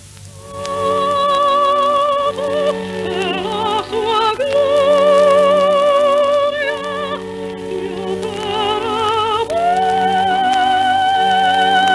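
Operatic music played from an old acetate disc: a high operatic voice singing with wide vibrato over repeated sustained accompaniment chords. It comes in about half a second in, climbs around four seconds in, and ends on a long held high note.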